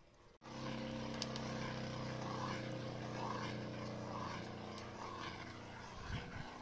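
An engine running steadily, a low even hum that starts abruptly about half a second in, with a brief low bump near the end.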